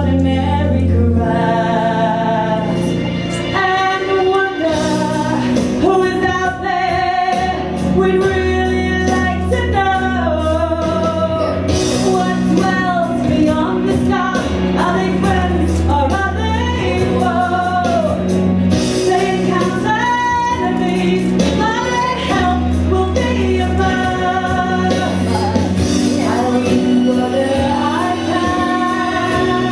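A song: singing voices carrying a melody over musical accompaniment with steady bass notes.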